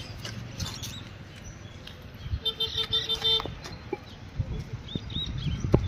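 Outdoor roadside ambience with a steady low rumble. A pitched call lasting about a second comes near the middle, later there are a few short bird chirps, and there is a single sharp knock near the end.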